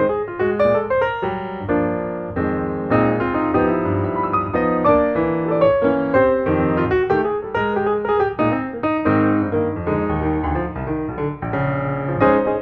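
Background piano music, a busy stream of short notes.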